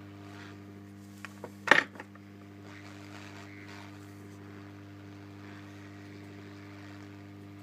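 Hot-air rework station running with a steady electrical hum, with a couple of light clicks and one sharp metallic click a little under two seconds in as tweezers and the metal board holder are handled.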